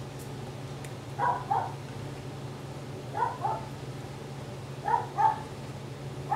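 A dog barking in quick pairs, three pairs about two seconds apart, over a steady low hum.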